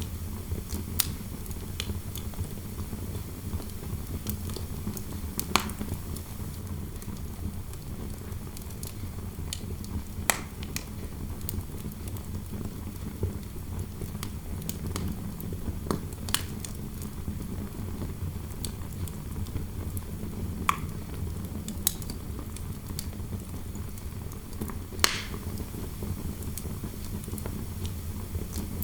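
Fireplace fire crackling, with sharp irregular pops every few seconds over a steady low rush of indoor wind noise.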